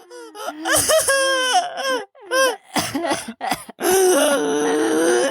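Acted vocal fit of a character dying of a cough: choked coughs broken by high, sobbing, laugh-like cries, with a long held cry near the end.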